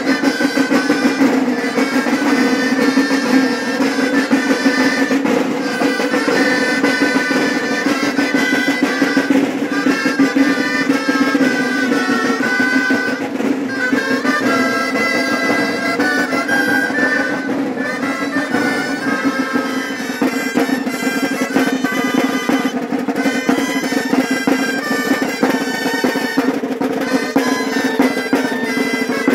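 Several gaitas, Navarrese double-reed shawms, playing a marching melody over side drums that beat and roll underneath.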